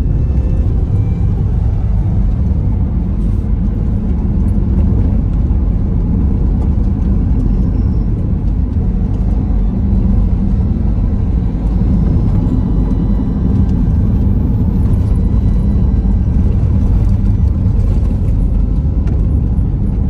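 Steady low rumble of a car driving, its road and engine noise heard from inside the closed cabin.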